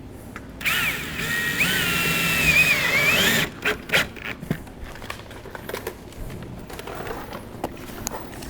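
Power drill or screw gun running for about three seconds, its high whine wavering in pitch as it loads and unloads. It is followed by a few sharp clicks and knocks.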